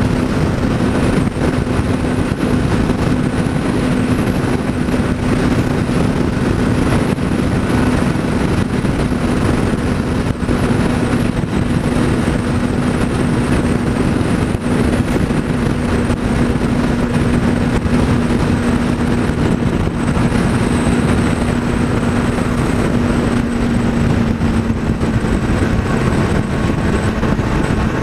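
Motorcycle engine cruising at steady highway speed, a steady engine note under heavy wind rush on the camera microphone. The engine note drops a little near the end.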